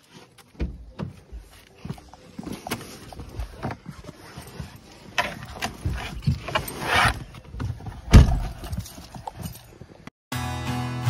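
Handling noises of someone getting into a car: shuffling steps, rustling and a run of irregular knocks and thumps, the loudest about eight seconds in. Just before the end the sound cuts to acoustic guitar music.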